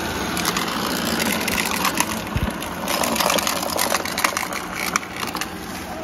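Robot vacuum cleaner running along a skirting board, its side brush sweeping small hard chips of debris into the suction with a rapid, irregular clicking and rattling over the steady motor and brush noise.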